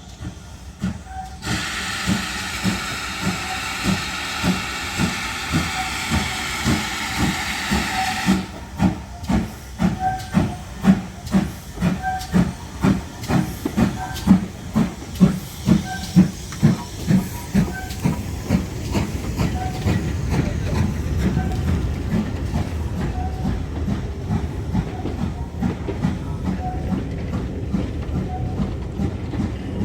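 GWR Manor-class 4-6-0 steam locomotive moving slowly. A loud hiss of steam lasts about seven seconds near the start, over a steady rhythmic beat about twice a second, which eases into a low rumble in the second half.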